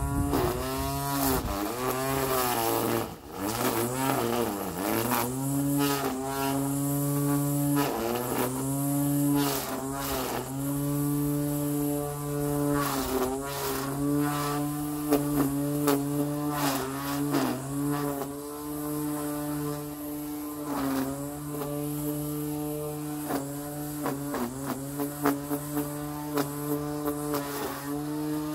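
Cordless electric grass trimmer running with a steady motor whine that dips in pitch now and then as it takes load in the grass, with short clicks of the cutting line striking.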